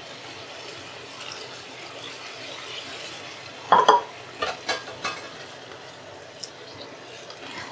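Masoor dal and cabbage in water sizzling steadily in a hot stainless-steel pan as it heats toward a boil. A little before halfway a spatula scrapes the pan with a brief ringing squeak, followed by a few light knocks and scrapes as the dal is stirred.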